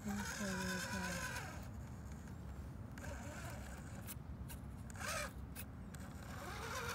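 Axial SCX24 micro rock crawler's Furitek Micro Komodo brushless motor and geared drivetrain whining under throttle as the truck climbs onto a log, the pitch rising and falling with the throttle. The whine is loudest in the first second and a half, with another short spurt about five seconds in.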